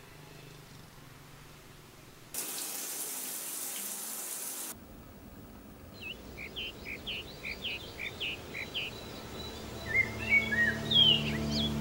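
A steady rushing hiss, like running water, for about two seconds that cuts off abruptly, then birds chirping in quick repeated notes, with louder, varied calls near the end over a low steady drone.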